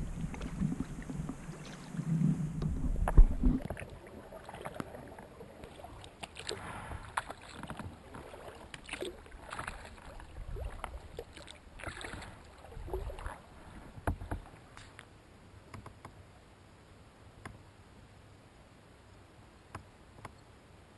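Kayak paddling: the paddle blade dips and splashes, water drips off it, and water laps at the bow of a sea kayak, with strokes about every one and a half to two seconds that thin out near the end. A low rumble and a sharp knock come in the first few seconds.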